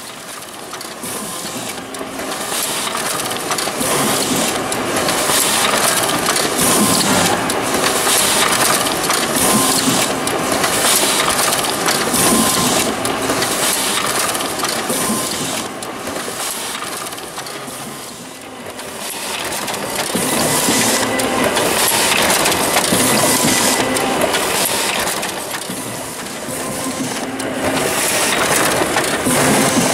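High-speed laser printer running with a high-capacity paper feeder: steady mechanical whirring and paper rustling as sheets feed through the rollers. It eases off briefly twice and then picks up again.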